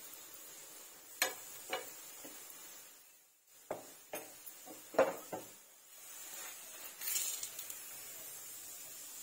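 A metal spoon clinking against an iron tawa several times while ghee is put on a paratha, the loudest knock about five seconds in, over a faint steady hiss.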